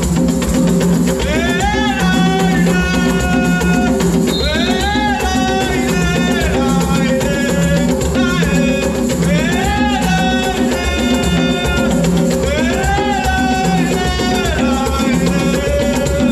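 Traditional Angolan dance music played live: drums and shaken rattles keep a fast, steady rhythm under a sung or chanted melody that comes back in repeated rising phrases every few seconds.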